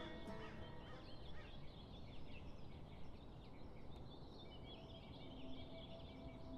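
Faint birdsong: many short, quick chirps from small birds, over a low steady background hiss.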